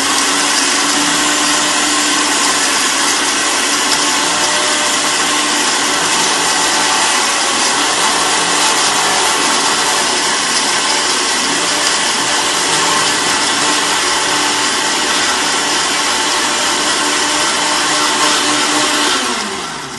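Countertop blender running steadily, chopping torn mango leaves in a little water into a purée. It is switched off near the end, and the motor winds down with a falling pitch.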